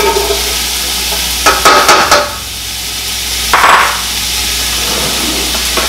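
Chopped onion going into hot oil in a stainless steel pot and sizzling steadily, with a few quick knocks and clatters of the bowl and utensils about two seconds in and a short louder hiss a little before the four-second mark.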